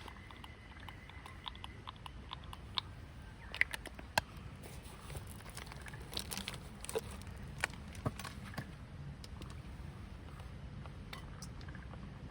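Scattered light clicks and knocks, a few at a time and loudest in the middle, over a steady low background hum.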